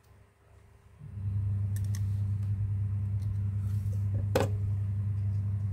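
A steady low electrical-sounding hum that starts abruptly about a second in and holds at an even pitch, with one sharp click near the middle.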